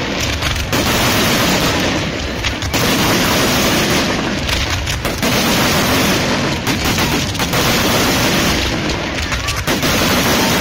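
Fireworks battery barrage: rapid, dense volleys of firework shots and bursts, sounding almost without a break and easing slightly about every two seconds.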